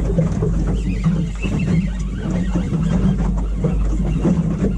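Steady low rumble aboard a small fishing boat, with wind and water noise on the microphone.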